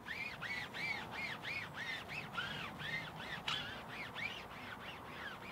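Foam applicator pad squeaking against a rubber tyre sidewall as tyre dressing is wiped on in back-and-forth strokes. About three squeaks a second, each rising and then falling in pitch with the stroke.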